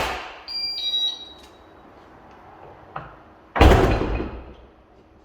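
A sharp knock, then about a second of short electronic beep tones stepping in pitch, then a heavy door thud about three and a half seconds in that dies away over about a second. No sustained siren and no rapid firing is heard.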